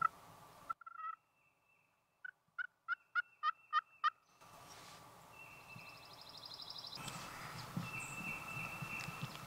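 Turkey friction pot call worked with a wooden striker: a run of about seven yelps, roughly three a second, starting about two seconds in.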